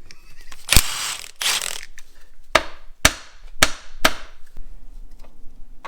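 Metal tools and engine parts clanking during an engine teardown: a knock and a couple of scrapes, then four sharp metal strikes about half a second apart, each ringing briefly.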